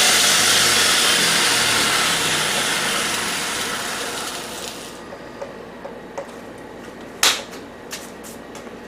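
A shop machine used to clean metal parts runs with a loud hiss, then winds down and fades out over about five seconds. A few sharp clicks follow, the loudest about seven seconds in.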